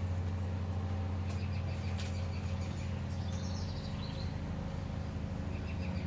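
Small birds chirping in short high series, over a steady low hum from some motor or traffic.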